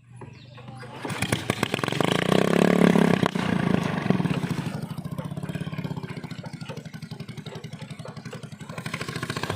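Small engine starting up and revving over the first few seconds, then running steadily with a rapid, even putter.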